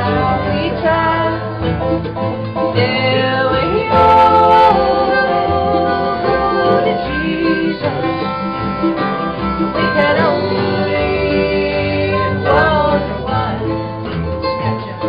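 Live acoustic string band playing a country-style tune on acoustic guitar, mandolin and upright bass, with a steady bass line under the plucked strings.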